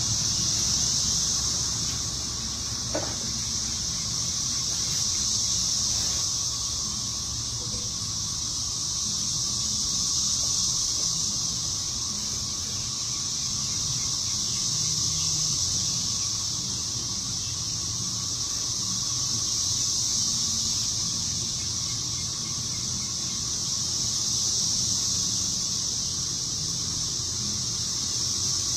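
Steady high-pitched insect drone, swelling and fading about every five seconds, over a low rumble.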